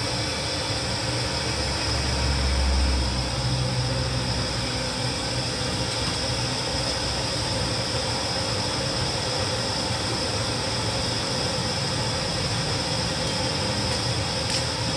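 Gas wok burner lit under an empty iron wok, burning with a steady rushing hiss; a deeper rumble swells about two seconds in and then settles.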